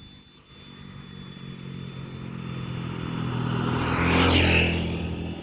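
A motor vehicle passing by: its engine sound grows steadily louder, peaks a little after four seconds in, then quickly falls away.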